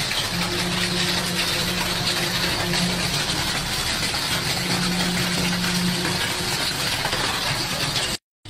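A machine engine running steadily under a loud, even rushing noise, cutting off suddenly near the end.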